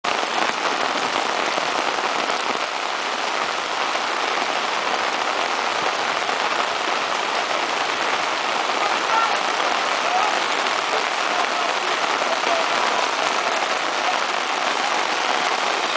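Heavy rain pouring steadily onto wet pavement and puddles.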